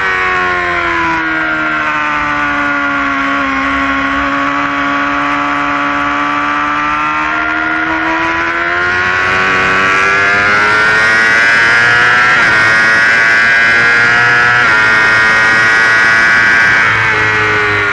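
Yamaha R6 inline-four engine on a track lap: the revs fall as the bike slows into a bend, stay low through the corner, then climb steadily under hard acceleration and hold high before dropping off near the end.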